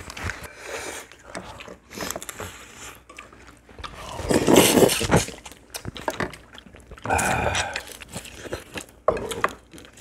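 Several people eating blue crab stew at a table: chewing, biting and sucking on crab pieces with scattered small clicks and crunches. There is a louder noisy burst about four and a half seconds in and another near seven seconds.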